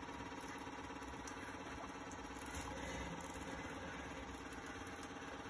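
Steady mechanical hum of a motor running, a continuous low drone.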